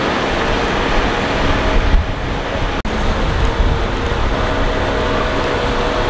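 Heavy earthmoving machinery engines running steadily, with a brief cut-out in the sound about three seconds in.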